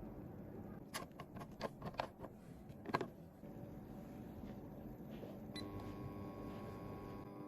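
A quick run of sharp, light clicks and taps of small hard objects, the loudest about three seconds in, over a steady low hum; soft sustained music tones come in about five and a half seconds in.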